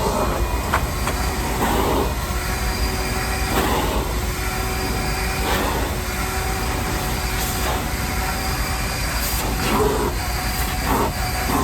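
Shop vac running steadily with a constant motor whine, with a rush of noise about every two seconds as the nozzle is stroked over the van's floor.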